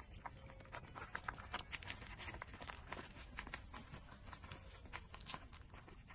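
Four-week-old puppies suckling at their mother's teats: faint, irregular wet clicks and smacks, several a second.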